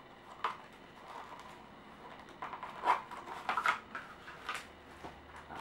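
Packing paper rustling and crinkling in a few short bursts as it is pulled out of a new shoe.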